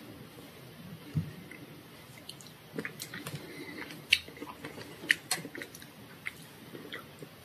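Plastic fork and knife working through a soft chocolate cake on a wooden board: soft squishing, with a few sharp clicks of the plastic cutlery, the loudest about four and five seconds in.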